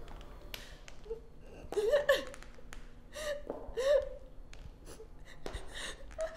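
A woman sobbing: short breathy gasps and wavering whimpers, several in a row.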